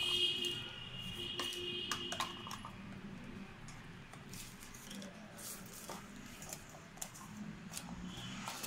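Light cardboard and paper handling as a phone box's folded card insert and tray are opened out: scattered soft clicks, taps and rustles. A steady high-pitched tone sounds over the first two and a half seconds or so, then stops.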